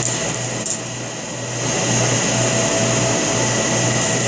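Steady mechanical whir with a low hum under it. A few light clicks cut through it, the clearest about two-thirds of a second in, as the stiff balisong's handles are worked.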